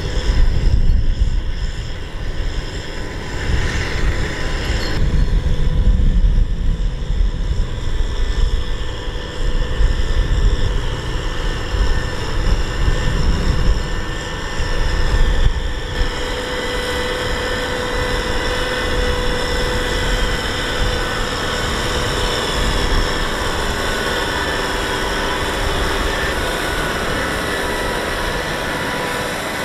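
Kubota M6040SU tractor's diesel engine running under load as it hauls a loaded trailer through deep mud: a steady drone with an uneven low rumble that evens out about halfway through.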